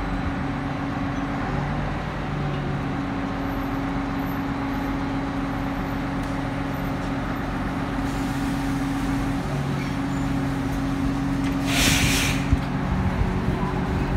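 Diesel rack-railway railcar idling at the platform, a steady engine hum, with a short loud hiss of released air about twelve seconds in.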